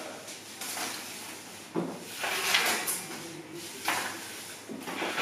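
Sliding and scraping sounds with a sharp knock, typical of things being pushed and handled. There is a knock about two seconds in, followed by a couple of short hissing scrapes.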